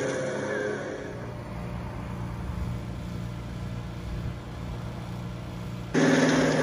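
Steady low mechanical hum. About six seconds in, a sudden louder, fuller noise cuts in.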